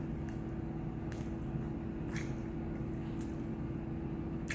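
Close-up chewing with scattered wet mouth clicks and smacks, about five in a few seconds, over a steady low hum.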